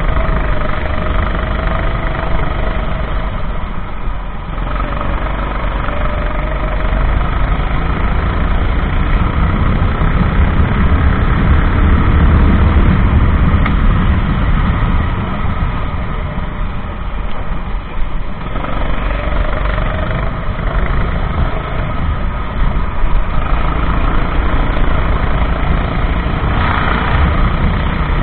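Racing kart engine running hard on a wet track, a low rumble whose pitch rises and falls as the throttle is worked through the laps.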